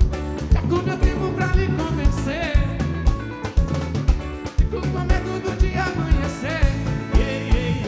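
Live axé band music: a steady, regular drum beat under instruments playing a short passage between sung lines.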